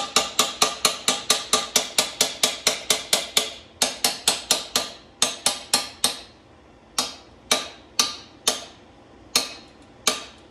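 Hammer tapping on metal in a quick steady run of about five strikes a second, each with a short metallic ring. After about three and a half seconds the taps come in shorter runs, then slow to single strikes half a second to a second apart.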